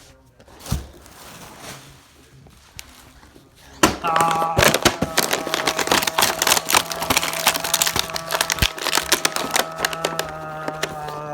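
Toy packaging being opened, plastic and cardboard crackling and crinkling in a dense run of clicks that starts about four seconds in. A steady droning tone runs under it from the same moment.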